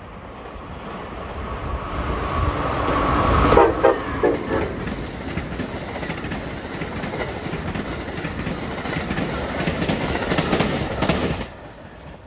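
Amtrak train of stainless-steel Amfleet coaches passing a station platform at speed. It builds as it approaches and is loudest about three to four seconds in as the head end goes by, then keeps up a steady rumble and clatter of wheels on rail that cuts off suddenly about eleven seconds in as the last car clears.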